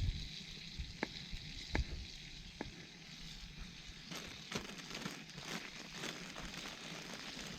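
Food sizzling in a pan over a campfire: a steady frying hiss with sharp pops, a few at first and then a quicker run of crackles about halfway through.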